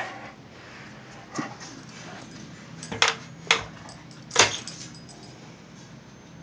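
A dog's teeth and nose knocking against a glazed ceramic dog figurine: a few sharp clicks and clinks, the loudest three coming close together about halfway through.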